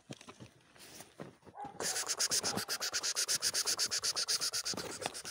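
A dog panting fast and hard close by, about eight breaths a second, starting about two seconds in. A brief high whimper comes just before the panting.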